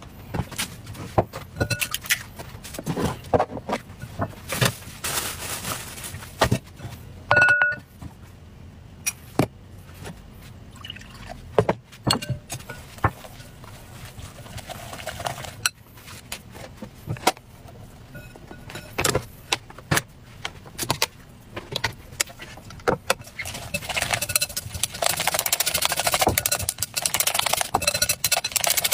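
Scattered clicks and knocks of bowls and utensils being handled, with a short ringing clink about seven seconds in. Chopsticks then stir flour and egg in a glass bowl, becoming fast, steady whisking of batter over the last few seconds.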